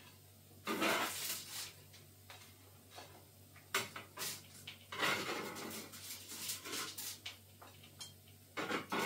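Metal fish slice scraping and scooping oven chips off a foil-lined baking tray, in several short bursts with pauses between.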